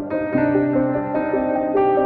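Background music: piano-like notes over sustained chords, a new note coming in every half second or so.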